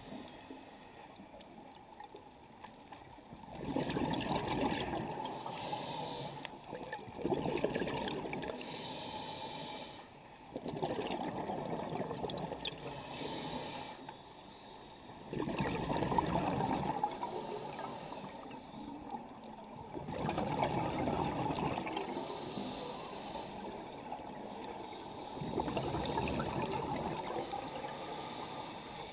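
Scuba diver breathing underwater through a regulator: six surges of exhaled bubbles gurgling and rumbling, each two to three seconds long, with quieter gaps between breaths.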